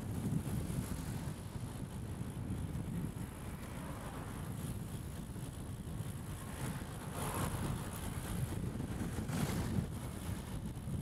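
Wind buffeting the microphone while riding a cross bike, a steady low rumble with road noise underneath. The hiss swells briefly twice, about seven and nine and a half seconds in.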